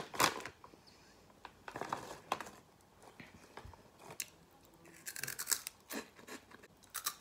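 Plastic snack bag crinkling and crackling as it is torn open and handled: a sharp tear about a quarter second in, then short crinkles every second or so with quiet gaps between.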